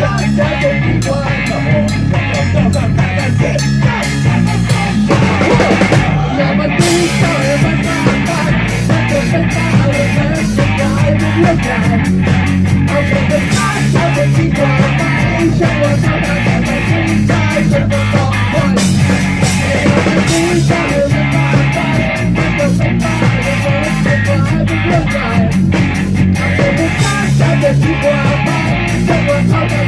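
Live rock band playing: a drum kit keeps a steady driving beat under electric guitar. About seven seconds in the sound turns brighter as the cymbals come in harder.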